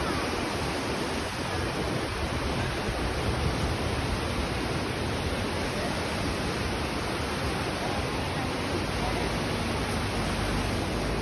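Steady rushing noise, even and unbroken, with some low rumble at the start.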